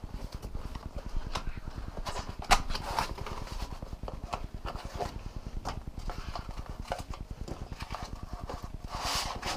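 Scattered light clicks and knocks, irregularly spaced, from the drone's flight batteries and charging hub being handled, with a brief rustle near the end.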